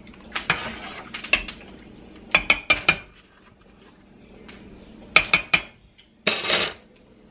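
A metal slotted spoon stirring soup in a stainless steel stockpot, clinking and scraping against the pot, then several sharp clinks about two and a half seconds in as it is knocked against the pot. A little after five seconds a few more clinks as the spoon is laid on a ceramic saucer, followed by a brief scrape.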